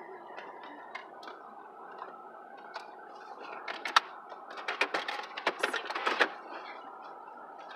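Rustling and sharp clicking as things are handled inside a parked car, mostly in a busy stretch in the middle, over a steady hum.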